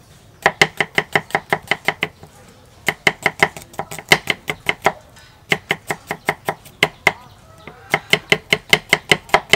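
Knife chopping shallots on a thick round wooden chopping board: quick runs of sharp knocks, about six a second, broken by short pauses.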